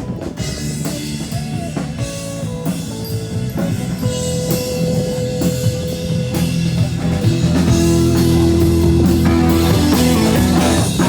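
Rock music with a drum kit and guitar playing at a steady beat, growing a little louder in the second half.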